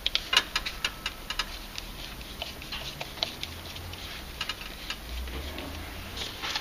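Small sharp plastic clicks, several a second at first and then scattered, as a screwdriver turns out the screw in the plastic back cover of a Watkins Silent Flow hot tub circulation pump and the cover is worked loose by hand.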